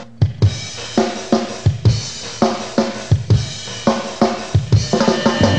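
Rock drum kit playing a live song intro: kick, snare and cymbal strikes on a steady beat about twice a second, quickening near the end.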